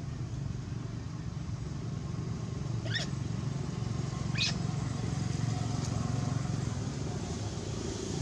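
Two short, high squeaks from a baby macaque, about a second and a half apart, over a steady low rumble.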